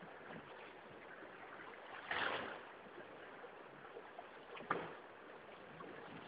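Water washing along a sailing yacht's hull under way, a steady low rush with two louder swooshes, about two and four and a half seconds in.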